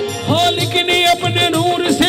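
Live qawwali music: a male voice sings a long, wavering note, entering about a third of a second in, over harmonium and hand drums.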